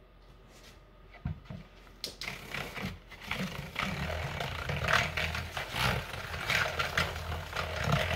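A metal utensil stirring and scraping around a plastic mixing bowl of melted oils and butters, in quick repeated strokes. The strokes start about a second in and get louder after about two seconds. The mixture is being re-stirred between pours so the additives don't settle and make the bars grainy.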